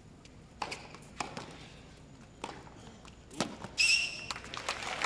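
Tennis ball struck back and forth in a rally, four sharp racket hits about a second apart, then a short high-pitched tone and the crowd breaking into applause at the end of the point.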